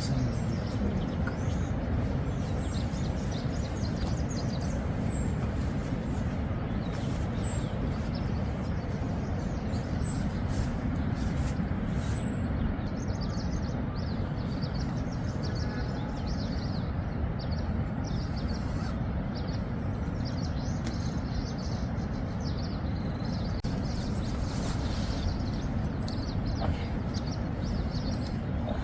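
Steady rain falling on a tent, many small drop ticks over an even hiss, with a few faint high bird chirps in the first several seconds.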